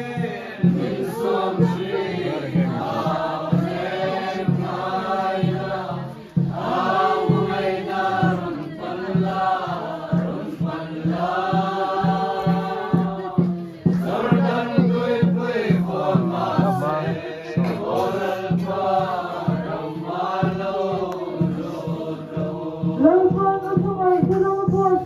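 A group of voices singing a slow, chant-like hymn together in long phrases, over a steady low beat.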